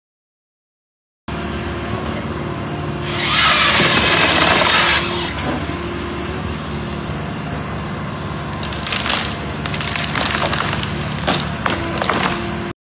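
A tree-removal grapple machine starts up after about a second of silence, its engine and hydraulics running steadily. About three seconds in, a loud sawing burst lasts some two seconds as a limb is cut through. Later there are scattered sharp cracks of branches breaking and splintering.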